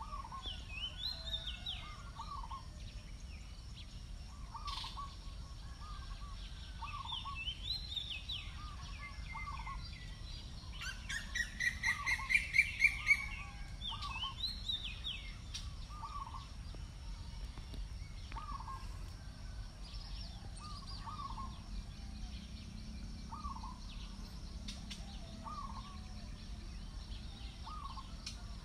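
Wild birds calling in a wetland: one bird repeats a short low call about every second and a half, others chirp higher, and a loud rapid run of rising calls comes about halfway through. A steady low rumble lies underneath.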